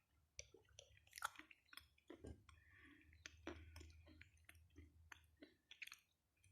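Faint close-up chewing of edible chalk: irregular soft crunches and wet clicks of the mouth, over a faint low hum.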